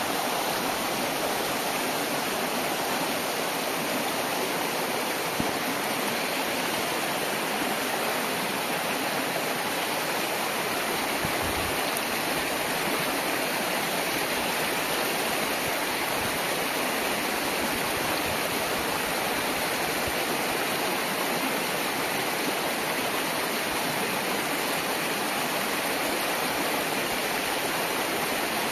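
A mountain stream rushing steadily over rocks. There is one brief knock about five seconds in.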